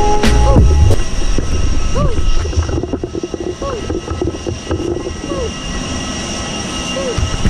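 Steady high-pitched whine of a jet airliner on the airport apron, with wind noise on the microphone.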